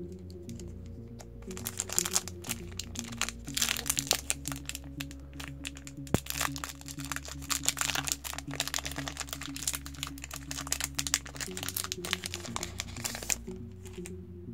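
Foil Yu-Gi-Oh! booster pack wrapper being torn open and crinkled by hand: a busy crackling rustle from about two seconds in until shortly before the end. Quiet background music plays underneath.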